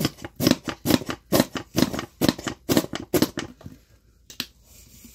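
A plastic squeeze bottle of barbecue sauce being shaken and squeezed upside down over a pan, sputtering out its last sauce in about two squirts a second. It stops about three and a half seconds in.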